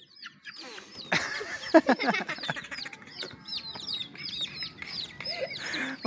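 Young chickens peeping over and over in short high chirps, with a louder squawk from a chicken being caught about a second in. A brief flurry of wing-flapping comes near the end.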